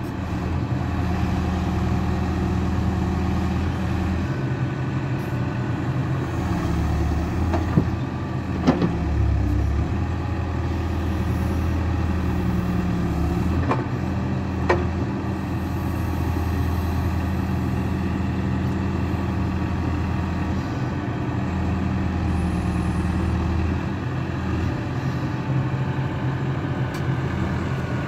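Caterpillar 444 backhoe loader's diesel engine running steadily while the backhoe arm is worked, its low note dipping and rising a few times under hydraulic load. A few sharp knocks from the moving arm come through over the engine.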